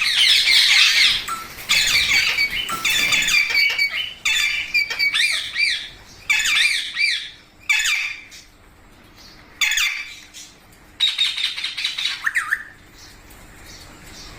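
A group of Indian ringneck parakeets squawking in harsh, screechy calls that come in a string of separate bouts with short gaps between them, dying away near the end.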